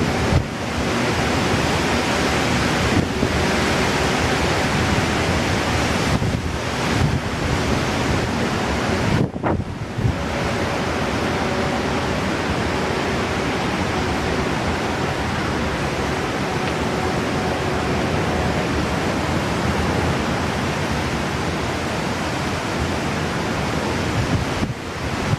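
Strong gusty wind blowing across the microphone, a dense, steady rush that briefly drops about three seconds in, again near nine seconds, and just before the end.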